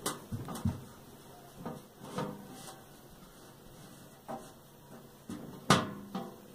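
Irregular light knocks and taps from a sheet-metal bread box being handled while glued magazine paper is pressed onto its lid with a tissue, with the loudest knock near the end.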